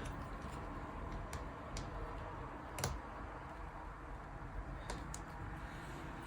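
A handful of small, sharp clicks and taps of repair tools and small parts as an iPhone 11 is taken apart, the loudest about three seconds in.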